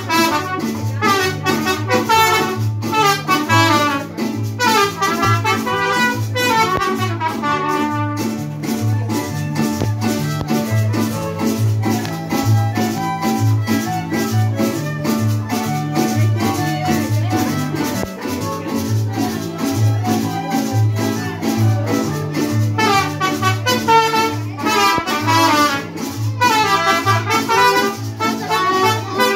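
A live band of trumpets and guitars playing Latin dance music over a steady, even bass beat with shaker-like percussion. The trumpets carry the melody, drop back in the middle and return strongly near the end.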